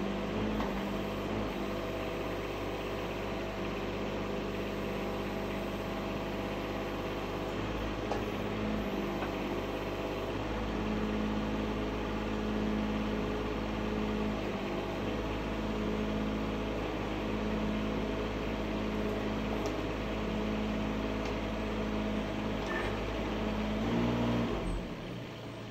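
Mini excavator's small diesel engine running steadily, its note swelling at times as the hydraulics take load. Near the end it briefly rises, then settles lower and quieter.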